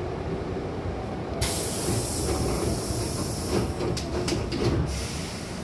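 Commuter train's sliding passenger doors closing: a sudden loud hiss of air from the door engine about a second and a half in, then a few knocks as the door leaves slide together and shut, over the low rumble of the stopped train.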